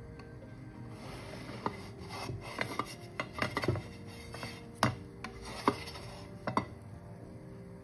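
A spatula scraping under a baghrir and knocking against the nonstick frying pan as the pancake is lifted off. It makes an irregular string of sharp clicks and scrapes, about a dozen of them, between about one and a half and six and a half seconds in.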